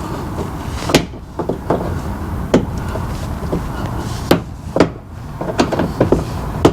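Plastic push-pin tab fasteners on a wheel-well liner being popped off: a handful of sharp, irregularly spaced clicks and knocks over a steady low background noise.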